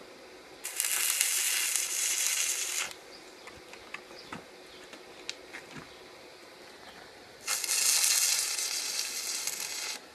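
Stick (arc) welding a steel pipe onto an LPG tank: the arc crackles and sizzles in two runs of about two seconds each, the second starting about seven and a half seconds in. A few light ticks come in between.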